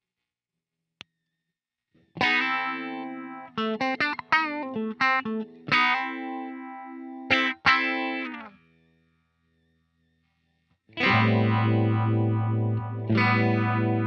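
Electric guitar played through a DOD Phasor 201 phaser pedal: a single click about a second in as the pedal is switched on, then picked notes and chords that stop at about eight and a half seconds. After a pause, a chord is struck at about eleven seconds and rings on with the phaser's slow sweep moving through it.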